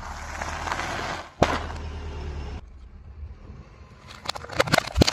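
Car tyre rolling onto a bag of chips, crackling as the chips crunch, then one sharp loud pop about a second and a half in as the bag bursts. Near the end a run of sharp cracks as the tyre crushes a plastic container of jelly-bean candy.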